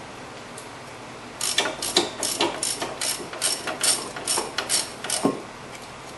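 Half-inch drive ratchet clicking in quick back-and-forth strokes, about four or five clicks a second, as it backs out a loosened brake caliper bracket bolt. The clicks start about a second in and end a little after five seconds with a duller knock.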